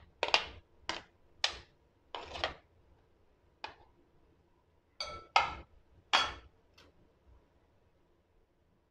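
A metal spoon and a ceramic plate knocking and clinking against a cut-glass bowl as boiled potato cubes are scraped off the plate into it: about ten sharp clinks spread over six or seven seconds, a few of them ringing briefly.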